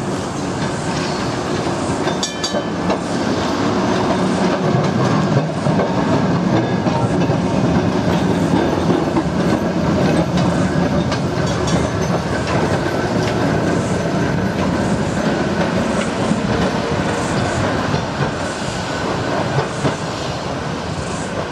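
Vintage Sydney electric tram running past on its rails. Its steady running noise swells as it comes close, is loudest from about five to twelve seconds in, and eases as it moves away, with scattered clicks through it.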